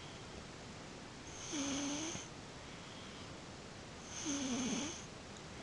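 A small sleeper snoring: two slow snores, each nearly a second long and about two and a half seconds apart, each a low drone with a hiss over it.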